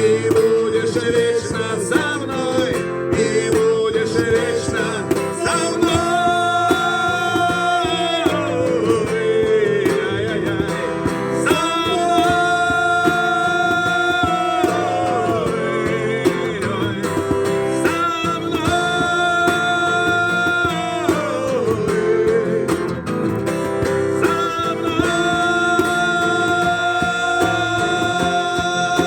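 Acoustic guitar playing a song, with a melody of long held notes over it. Each note slides down at its end, and the phrase repeats about five times, with no lyrics.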